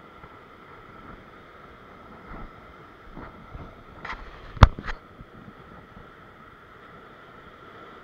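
Surf surging and breaking over coastal rocks, a steady wash of sea noise. About halfway through come a few short sharp clicks, one much louder than the others.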